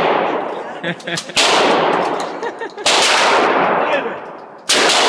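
Three gunshots, a second and a half to two seconds apart, each echoing out slowly, with a few small clicks between them.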